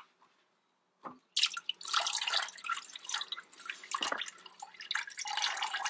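Antifreeze coolant pouring out of the Honda Accord radiator's lower hose outlet and splashing into a bucket as the radiator drains, after a short knock about a second in. The splashing starts suddenly about a second and a half in and keeps going.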